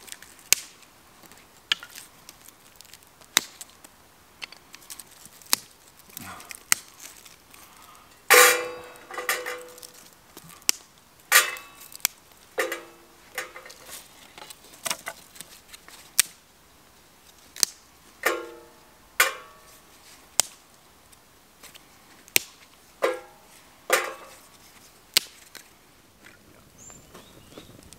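Dry sticks being snapped by hand and fed into a small metal wood-burning twig stove: many sharp cracks, with about eight louder knocks that ring briefly.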